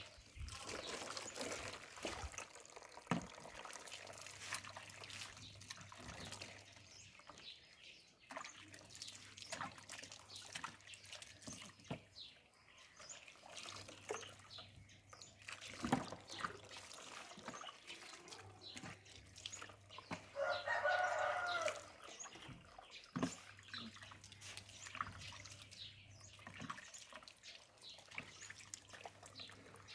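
Water splashing and dripping during a dog's bath, with scattered clicks and knocks. About 21 seconds in, a short high-pitched whining cry.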